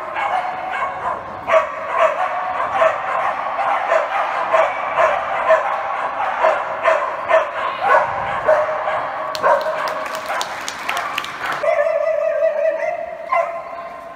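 A dog barking over and over in high-pitched yips, a few a second. Near the end the barking gives way to one held whining note.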